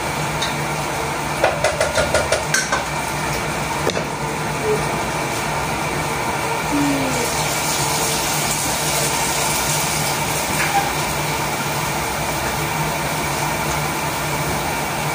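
Steady hum of a kitchen range hood fan. About a second and a half in, a quick run of six or seven metal taps, a cooking utensil knocking against the pan as the food is stirred, then a single knock near four seconds.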